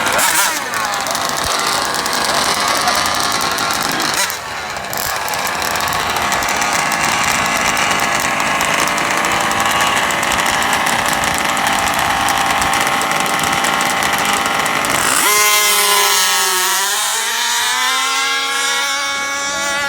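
Small two-stroke gasoline engines of 1/5-scale RC cars running with a buzzing, chainsaw-like note. About 15 seconds in, one engine stands out, its pitch bending and rising as it revs.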